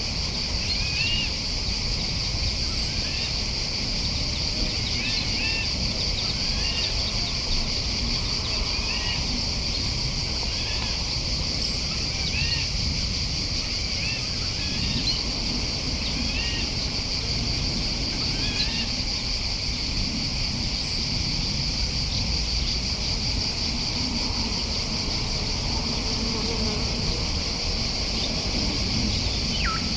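A dense, steady insect chorus with a fine pulsing buzz, the loudest sound throughout. Over it, small birds chirp repeatedly in short rising-and-falling notes, with one longer falling call near the end.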